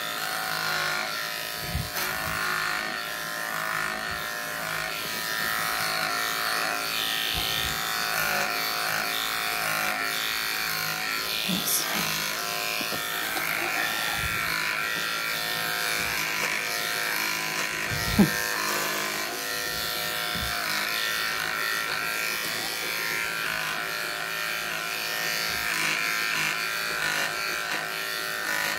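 Aesculap Durati cordless clipper (2021 model, 3500 strokes a minute) with a wide blade, buzzing steadily as it shaves through dirty, matted undercoat on a Leonberger. One brief knock about two-thirds of the way through.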